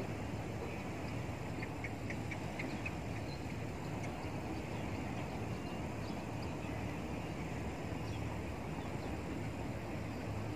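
Steady outdoor background hum and hiss, with a quick run of about six light ticks roughly two seconds in.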